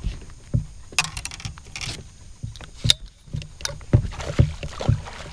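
A hooked bass thrashing and splashing at the water's surface beside the boat during the fight, in several short splashes, the last and longest about four seconds in. Under it, repeated dull knocks from movement in the aluminum boat.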